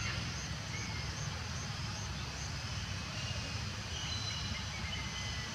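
Outdoor woodland ambience: a steady low rumble with faint, thin high-pitched calls coming and going above it.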